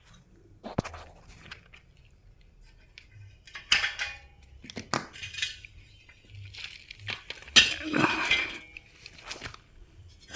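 Small metal tools and fittings clinking, knocking and rattling in a few scattered bursts, as a charging valve is fitted onto a refrigerator's pipe.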